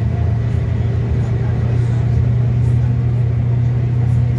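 Scania K320 city bus's diesel engine droning steadily under way, heard from inside the passenger cabin along with road noise. Its pitch rises a little about two seconds in as the bus picks up speed.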